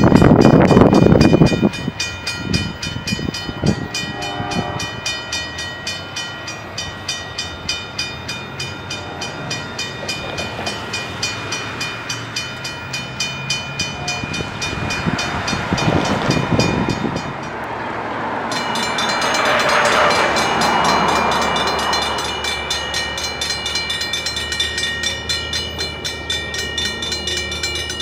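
A train rumbles past, fading out about a second and a half in, then a railroad grade-crossing bell rings on with its gates down, about two strikes a second.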